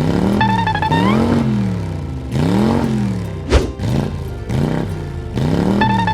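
Car engine sound effect revving up and down over and over, about once every second and a half, with music and short sliding tones. A sharp click comes about three and a half seconds in.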